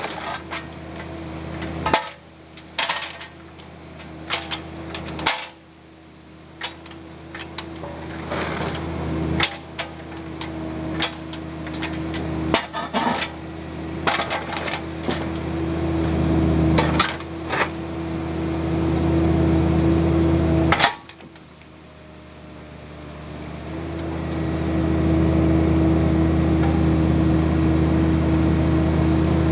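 Bobcat mini excavator's diesel engine running under hydraulic load, its sound swelling and dropping several times, with sharp knocks and scrapes as the bucket works against blast rock in the pickup's bed.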